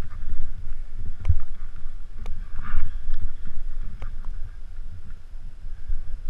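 Skis running down through fresh, soft snow, with wind buffeting the camera's microphone as a steady low rumble. A few sharp knocks come through, the strongest about a second in.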